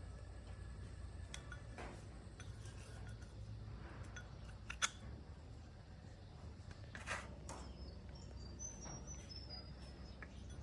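Faint low background rumble with two sharp light clicks, about 5 and 7 seconds in. Short high chirps of small birds come near the end.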